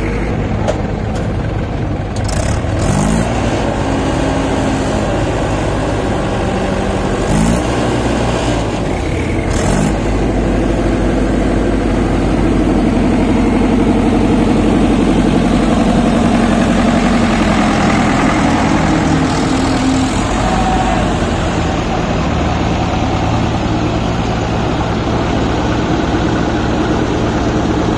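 Diesel tractor engines running hard at work. An engine is revved up about three times in the first ten seconds, its pitch rising each time, then held at high revs for several seconds in the middle before settling back.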